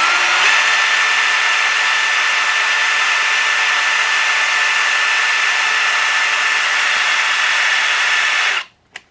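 Power drill running steadily, boring into a concrete block wall with a masonry bit, a whine with an even grinding hiss. It stops briefly near the end and starts again.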